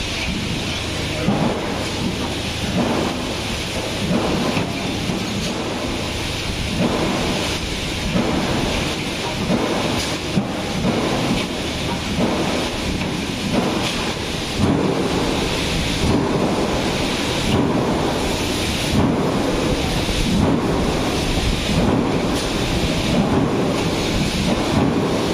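CNC bending machine running through its cycles: a steady noisy rumble with a repeated stroke about every second and a half.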